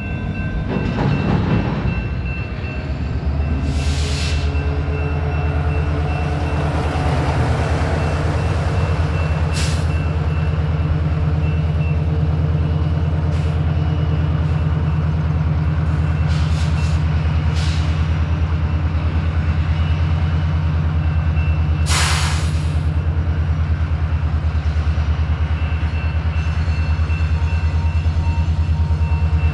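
Diesel locomotive engine running steadily close by, a deep even drone, with several short blasts of air hiss, the longest about two-thirds of the way through.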